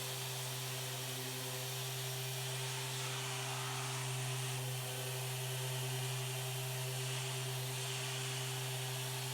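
A steady motor-like hum: a strong low drone with a few fixed higher tones over an even hiss, holding level without change.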